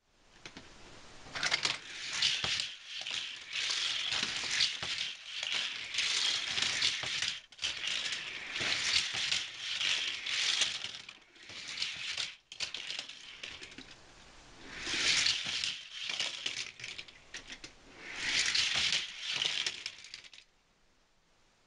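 Die-cast Hot Wheels trains and cars rattling along plastic Hot Wheels track and through a double loop. The clatter starts about a second and a half in, swells louder twice near the end, and stops shortly before the end.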